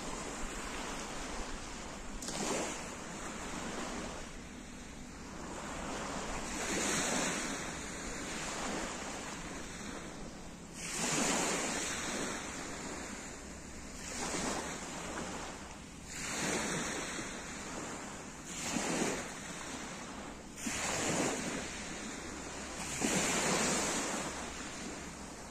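Small waves breaking and washing over a pebble beach, the wash swelling and fading about every two to three seconds.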